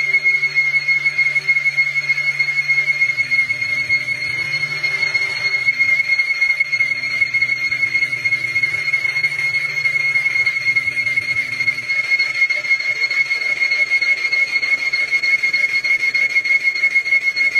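Lathe cutting tool squealing against a large spinning metal workpiece as it faces the bore: one steady, high-pitched whine that never changes pitch, with a low machine hum beneath.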